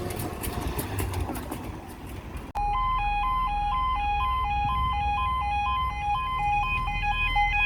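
Level crossing warning alarm starts abruptly about two and a half seconds in, after a few seconds of faint handling noise: a steady two-tone alarm alternating between two pitches about twice a second.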